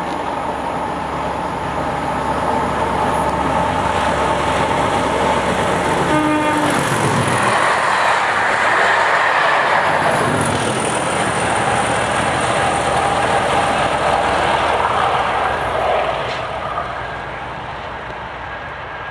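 Class 37 diesel-electric locomotives with English Electric engines hauling an inspection train past at speed. A short horn blast sounds about six seconds in as the train nears. The engine and the rumble of the coaches build to a peak as they pass close by, their pitch dropping, then fade as the train moves away.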